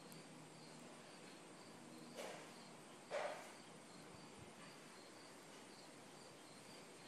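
Faint insect chirping, a high-pitched pulse repeating about three times a second. Two short whooshes come about two and three seconds in, the second the louder.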